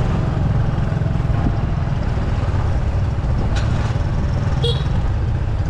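A road vehicle's engine running steadily with a low rumble, heard close up.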